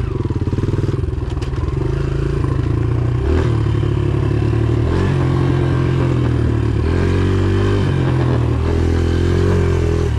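Kawasaki KLX dirt bike's single-cylinder four-stroke engine running under changing throttle, its pitch stepping up and down several times. A few sharp clacks come about a second in.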